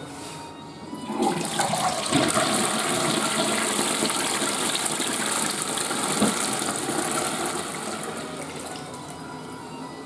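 Ostomate waste sink flushing. Water rushes in about a second in, runs strongly for several seconds, then gradually tapers off near the end.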